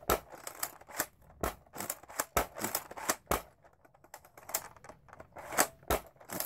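Irregular clicks and clacks of a Nerf Zombie Strike Doominator's plastic parts being worked by hand, about a dozen sharp clicks spread unevenly.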